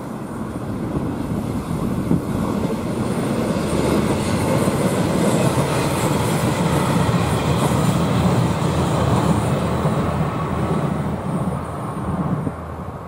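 Aircraft engine rumble that builds over the first few seconds, stays loud through the middle and drops off sharply near the end.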